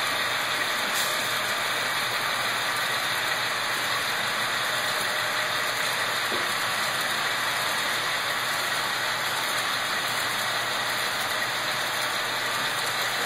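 HO scale model freight train running along the layout track: a steady mechanical rolling noise of its wheels and drive.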